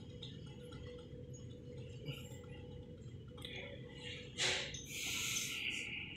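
Electric drill briefly boring into the steel table frame about four seconds in: a short sharp burst, then a second or so of steady high hiss that cuts off suddenly. Before that there is only faint room hum.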